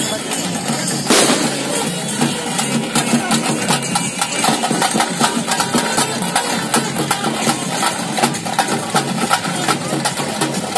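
Fast, loud procession drumming on tase drums, the drums that accompany pili vesha tiger dancing, with a single loud crack about a second in.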